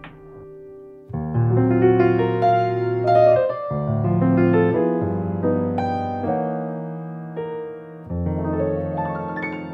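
Background music: slow, sustained piano chords that begin about a second in and change every second or so.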